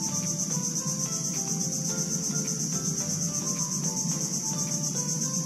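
A chorus of insects shrilling steadily at a high pitch, with a fast, even pulse and no pause.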